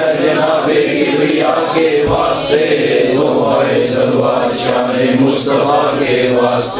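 A group of men's voices chanting together in unison, a rhythmic Sufi devotional chant, with sharp 's' sounds recurring every second or so.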